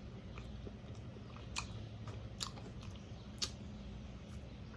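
A person chewing a fried whiting sandwich close to the microphone, with a few sharp crunches of the fried crust spaced about a second apart.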